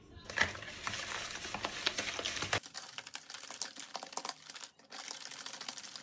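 Cake batter being mixed by hand in a bowl: a utensil clicking rapidly against the bowl, with the sound changing abruptly twice.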